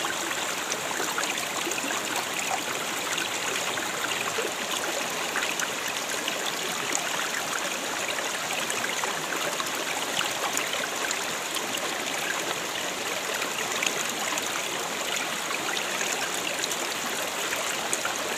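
Creek water running steadily over rocks, an even, unbroken rushing.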